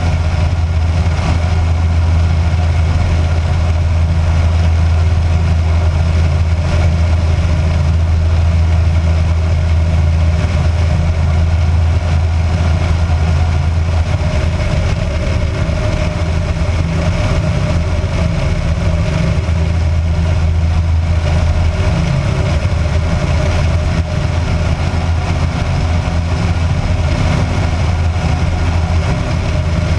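Kitfox light aircraft's piston engine and propeller running steadily in flight, a constant loud drone with a rushing noise over it.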